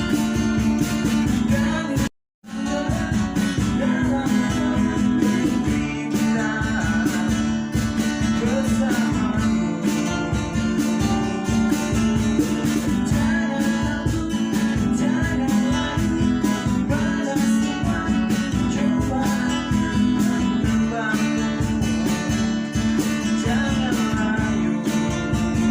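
Acoustic band music: acoustic guitars strumming and picking over a steady cajon beat. The sound cuts out completely for a moment about two seconds in.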